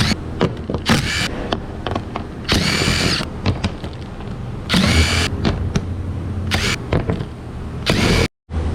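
Handheld power tool, of the drill or impact driver kind, run in several short bursts, each with a pitch that rises and falls; the longest bursts come about two and a half and five seconds in. A steady low hum runs underneath.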